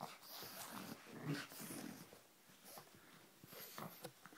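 A pug making short, noisy snuffling breaths and grunts as it noses and mouths at a socked foot, busiest in the first two seconds and quieter after.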